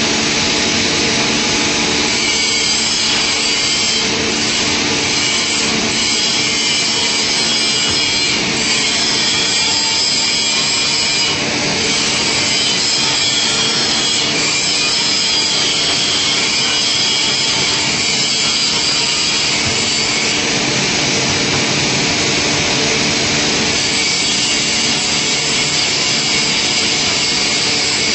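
Woodworking machine running and cutting wood: a steady, unbroken machining noise with a constant hum underneath.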